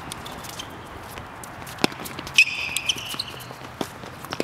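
Tennis ball struck by rackets in a rally on a hard court: a sharp pock about two seconds in and another near the end. A loud, brief high squeak comes about halfway through.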